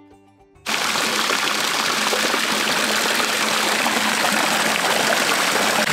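Steady rush of running water that starts abruptly just under a second in and stays even throughout.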